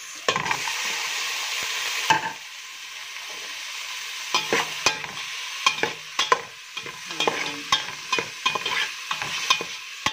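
Diced tomatoes going into hot oil with sautéing onions, giving a loud sizzle for about two seconds. Then a metal slotted spoon stirring and scraping against the metal pot in quick, uneven clicks over a softer frying sizzle.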